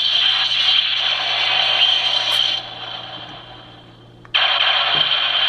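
Electronic sound effects from the DX Brave TyrannoKing mecha toy's small speaker, set off by an inserted Zyudenchi battery. A harsh, noisy blast fades out over two or three seconds, then a second blast starts suddenly about four seconds in.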